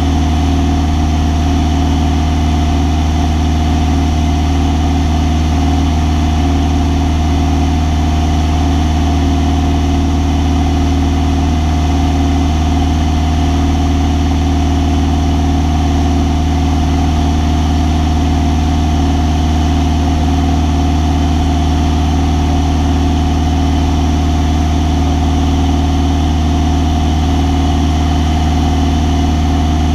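Light single-engine airplane's engine and propeller running steadily in cruise flight, heard from inside the cockpit as a loud, even drone with a deep hum.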